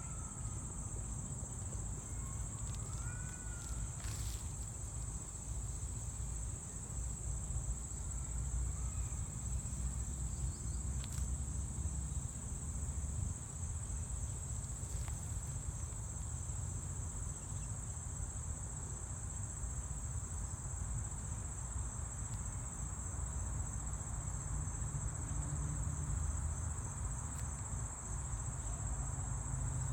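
Steady, high-pitched insect chorus, a constant drone with no break, over a low rumble. A few faint bird chirps come in the first few seconds.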